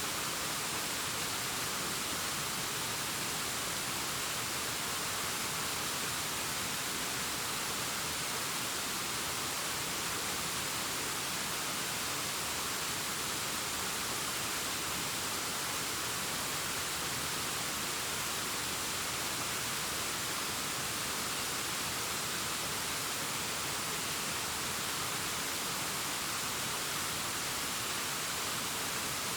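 Distant waterfall cascading down a rock face: a steady, even rush of water, more hiss than rumble.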